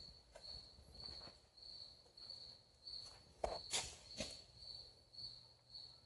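A cricket chirping steadily, about two high chirps a second. A few knocks, like footsteps or handling, come about halfway through.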